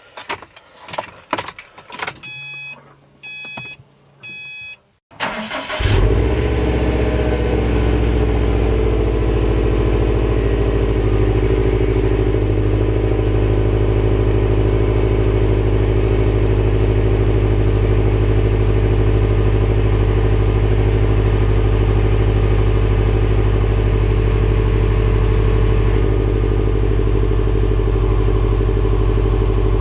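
Subaru WRX STI's turbocharged flat-four engine, still on its stock exhaust, cold-started. A few clicks and a short series of electronic beeps come first. After about five seconds it cranks and catches, then settles into a steady, loud fast idle.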